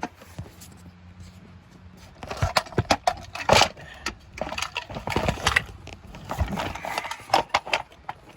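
Irregular handling noises: scattered sharp clicks and knocks mixed with short rustles, with no engine running.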